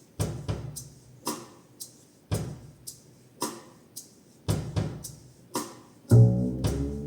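A slow blues-rock drum groove played alone on a drum kit: kick drum, snare and cymbal hits in a steady slow beat. About six seconds in, bass and electric guitar come in with sustained notes.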